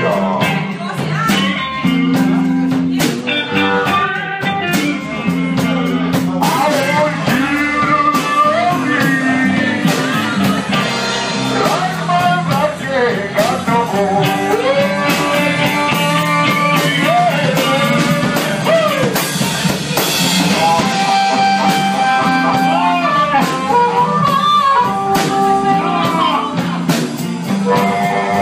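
Live blues band playing: electric guitar, bass line and drum kit, with a lead line over them that bends and slides in pitch.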